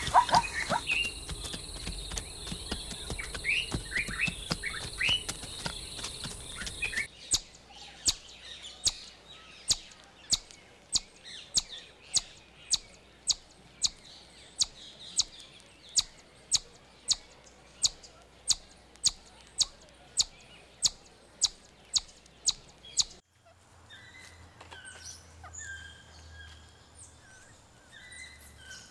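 A steady high insect-like hiss with a quick run of short rising calls. Then sharp chirps repeated evenly about twice a second for some fifteen seconds, as from palm squirrels calling. Then short high chirps and whistles.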